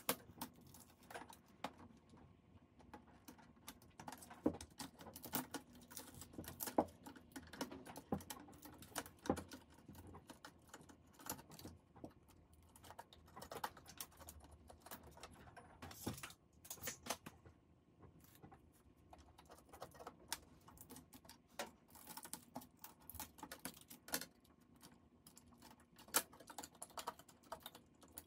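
Wire harnesses and small cable connectors being unplugged and pulled from the metal chassis and circuit board of a 30-inch Apple Cinema Display. The sound is irregular small clicks and light rustles, with no steady rhythm.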